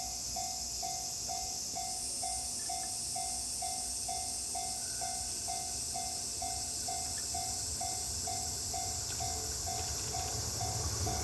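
Japanese railway level crossing warning bell ringing its steady electronic ding, about two strikes a second, over a steady high hiss of insects. Near the end the low rumble of an approaching train starts to build.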